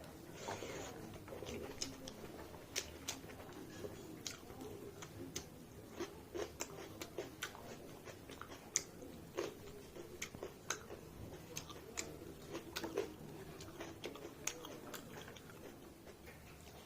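A person chewing a mouthful of mutton and rice close to the microphone, with irregular wet mouth clicks and smacks every fraction of a second.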